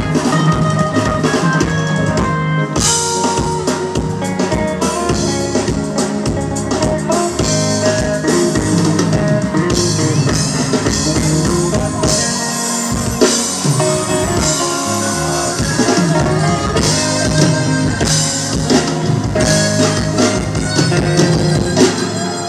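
A live band playing, with drum kit and electric guitar prominent over held notes from other instruments.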